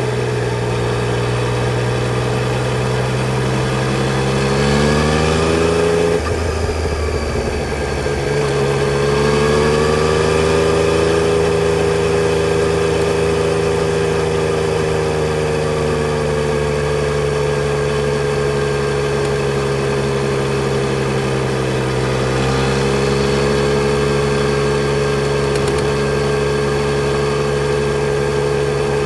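Yamaha Tracer 900 GT's 847 cc inline-three engine running under throttle. Its pitch rises about four seconds in, drops suddenly about six seconds in, climbs again and then settles into a long steady drone, with a brief dip near the end.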